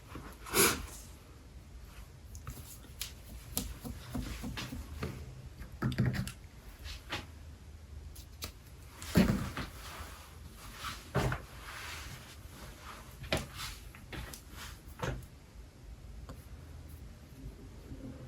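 A handful of short knocks and clicks spread irregularly through the stretch, the sound of objects being handled and set down in a small room.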